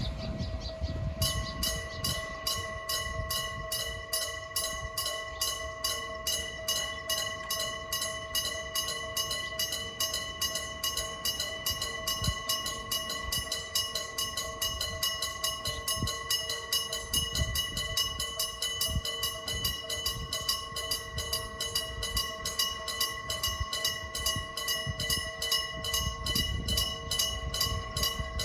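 Old-style electric bell of a Japanese railway level crossing ringing its warning: a rapid, even hammering on the gong with a steady ring, beginning about a second in.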